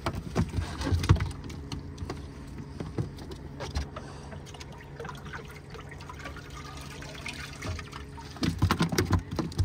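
Water splashing and trickling as a container of freshly caught fish is tipped out onto a boat's floor. There are a few knocks in the first second and a busier clatter of knocks near the end.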